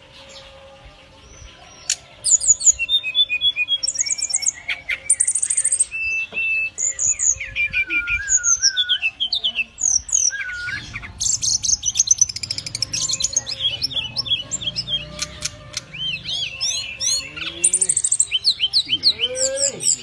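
Brown-chested jungle flycatcher singing a long, varied run of clear whistled phrases, rapid trills and rising and falling notes, starting about two seconds in.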